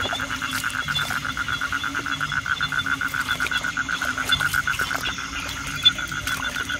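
Frogs calling in a steady, rapid pulsed trill of about six or seven pulses a second, in a wet night chorus.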